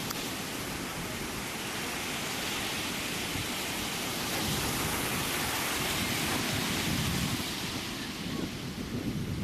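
Ocean surf: a steady rush of waves breaking and washing, swelling a little in the middle and easing near the end.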